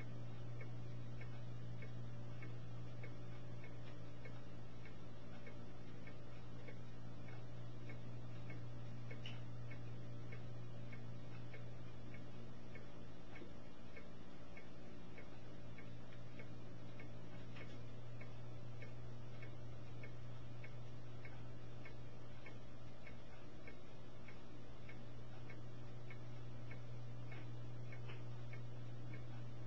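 A steady low hum with faint, fast, regular ticking running through it.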